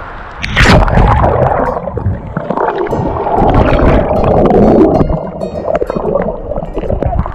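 Water splashing and gurgling close to the microphone during kayaking, starting suddenly about half a second in, with many small knocks and clicks through it.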